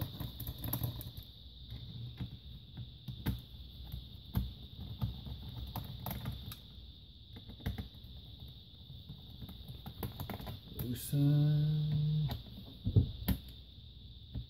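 Scattered light clicks and handling noises of small screws being loosened and masking tape pressed down on a laptop's plastic base, over a steady high-pitched whine. A brief low hum lasting about a second comes near the end.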